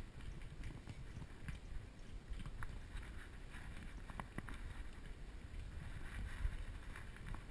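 Muffled rubbing and low rumbling from a camera strapped to a moving puppy's body, with a few scattered light clicks of claws on a tile floor.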